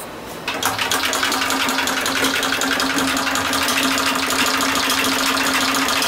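Rotary tablet press running as it compresses metformin granules into tablets: a steady hum with a rapid, even clatter. It comes in loudly about half a second in.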